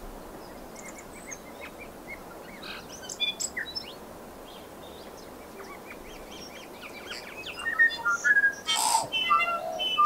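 Tui singing: a few scattered high chirps, then about three-quarters of the way in a busier, louder run of whistled notes and clicks with a loud noisy burst among them, over a faint steady hiss.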